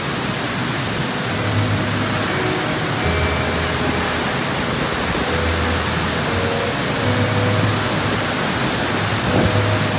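Heavy rain pouring onto paving and roofs, a loud, even hiss of a downpour. Faint low tones come and go underneath it.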